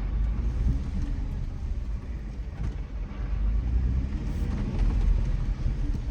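2007 Jeep Wrangler JK driving, heard from inside the cabin: a steady low rumble of engine and tyres on the road.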